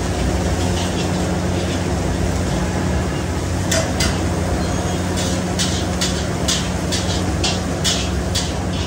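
Automatic fried rice machine running over a gas burner, a steady low hum. From about four seconds in, quick metal scrapes against the steel wok repeat about twice a second as the rice is stirred.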